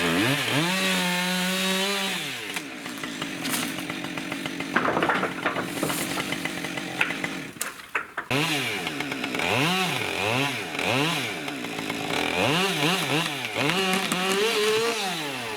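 Chainsaw engine revving up, held high for about two seconds, then dropping back to idle. Later comes a series of short throttle blips, each rising and falling in pitch.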